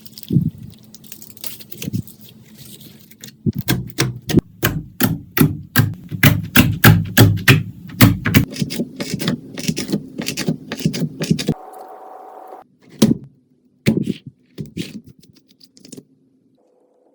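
Slime being squeezed and kneaded by hand: a rapid run of sharp wet clicks and pops, densest and loudest in the middle, thinning to a few scattered pops near the end.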